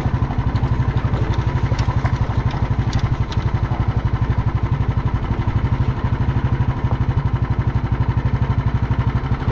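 Motorcycle engine running at steady, low revs on the move, its exhaust pulsing evenly, with a few sharp clicks between about two and three seconds in.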